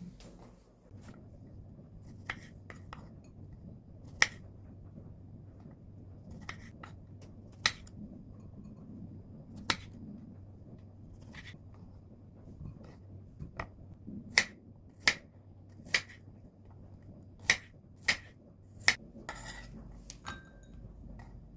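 Kitchenware clinking and tapping: about a dozen sharp, separate knocks of utensils against dishes, spaced irregularly and thickest in the second half, over a steady low hum.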